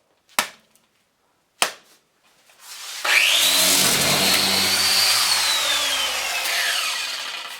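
Two sharp clicks. About three seconds in, a handheld power tool's motor starts up with a whine that rises quickly. It runs briefly and then winds down, its pitch falling. The tool is failing and judged done for.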